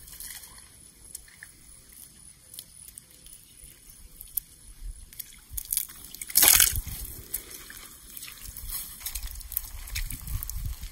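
Bare feet squelching and splashing through shallow muddy water and wet grass, with one loud splash about halfway through.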